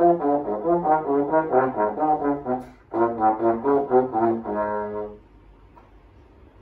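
Solo trombone playing a lively passage of quick, short, separate notes. About three seconds in there is a brief break, then a second phrase that ends on a longer held note. After that the instrument rests for over a second.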